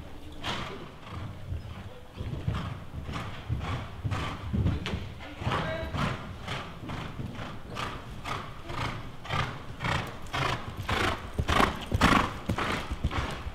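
Grey horse cantering on sand footing in an indoor riding hall, with an even beat of about two strides a second. It is loudest near the end as the horse passes close by.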